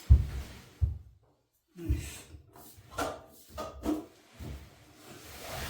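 Irregular knocks, bumps and rattles of hands handling parts, about half a dozen over a few seconds, some with a deep thud.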